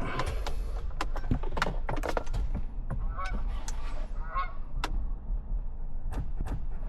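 Plastic instrument-cluster housing squeaking and clicking against the dash trim as it is rotated and worked out of the dash, with two short squeaks about three and four seconds in.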